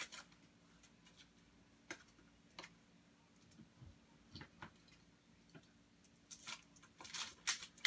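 Faint scattered clicks and light rustling as a mailed package of baseball cards is handled and opened, with a flurry of louder rustling and clicking near the end.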